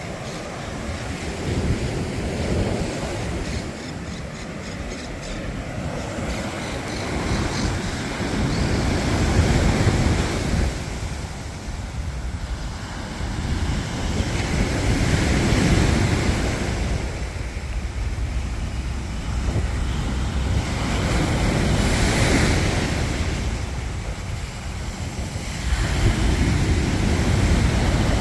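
Waves breaking and washing up a beach, swelling and fading every few seconds, with wind buffeting the microphone.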